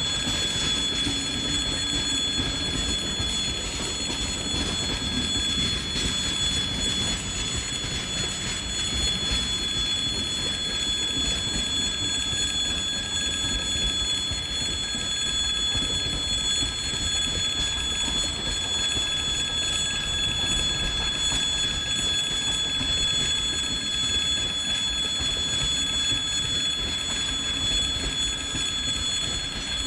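Freight train wagons rolling past: a steady rumble with a high, even ringing tone held over it.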